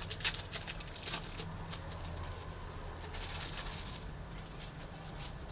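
Trading cards and foil pack wrappers handled on a table: bursts of short crinkly rustles and clicks near the start and again about three seconds in, over a steady low hum.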